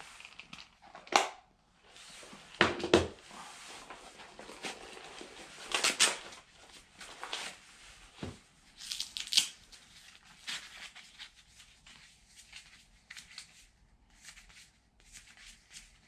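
Rustling, crinkling and scattered sharp clicks of fishing gear being handled: a plastic fly box shut and set down, and a folded plastic fish-measuring tape taken out and opened.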